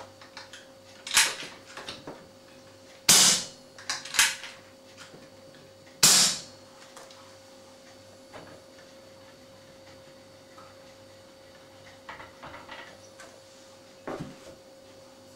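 Two shots from an air rifle fitted with a long handmade aluminium silencer, about three seconds apart, each a short sharp report that dies away quickly. Fainter clicks and knocks of the rifle and silencer being handled come before, between and after.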